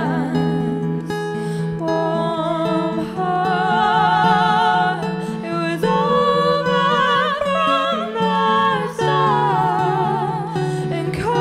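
Live acoustic song: an acoustic guitar played steadily under a woman's singing voice, with long held notes and vibrato.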